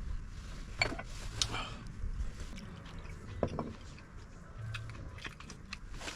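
Scattered light clicks and knocks over a low steady rumble, the most distinct about a second in and again past the middle.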